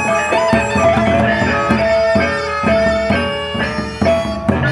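Sasak gendang beleq ensemble playing: large barrel drums beaten with sticks, clashing hand cymbals and gongs, over a melody of long held notes.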